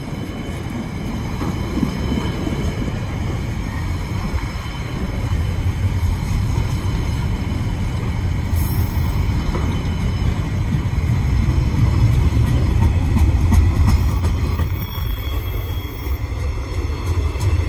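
Freight train wagons rolling past on the track: a steady low rumble of wheels on rail, building to its loudest about two-thirds of the way through.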